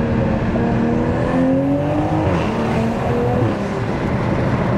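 Toyota GR Supra (A90) running on its stock exhaust with an aftermarket Armytrix downpipe, heard from inside the cabin through open windows while driving. The engine note rises for about a second, drops a little over two seconds in, then holds steady, over road and wind noise.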